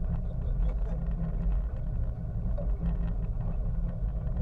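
Boat engine running with a steady low rumble, with a few faint clicks over it.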